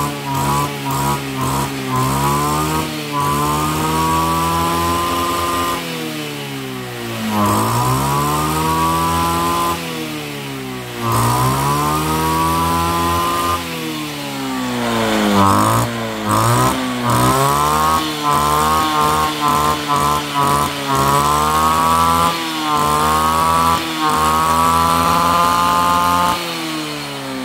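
A STIHL FS2601 brush cutter's 26 cc two-stroke engine is revved hard and loud, over and over. It climbs to full speed, holds, and falls back toward idle every few seconds, with quick throttle blips in between.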